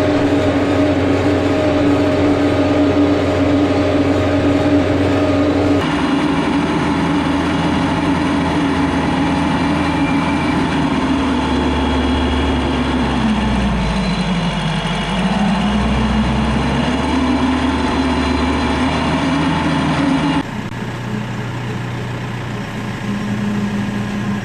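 Kioti RX7320 tractor's diesel engine running steadily under load while pulling a tillage implement. Heard close up from beside the front wheel, its pitch sags for a couple of seconds about halfway through, then recovers. Near the end it gives way to a quieter, smaller tractor engine.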